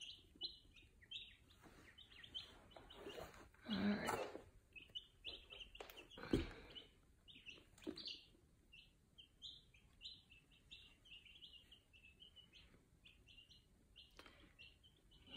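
A brood of five- to six-day-old chicks peeping: many short, high cheeps in quick succession, with a few soft knocks or rustles in between.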